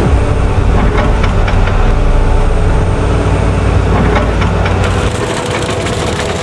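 Komatsu PC210 excavator's diesel engine running with a steady deep rumble, over which come repeated sharp clanks and cracks. The rumble thins about five seconds in.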